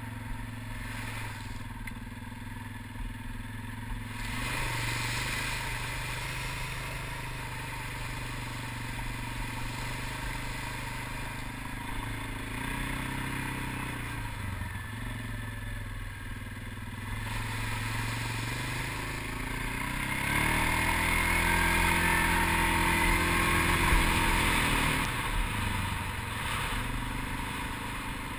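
ATV engine running under way, its revs rising and falling. It is louder, revving up through acceleration, about two-thirds of the way through.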